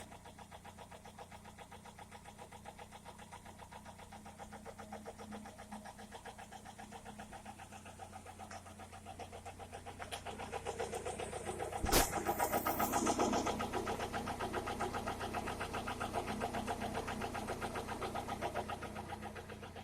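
Toyota Corolla E110's 4E-FE 1.3-litre four-cylinder engine running with a fast, even knocking, the engine knock that is the fault being recorded. It gets louder from about ten seconds in, with one sharp click around twelve seconds.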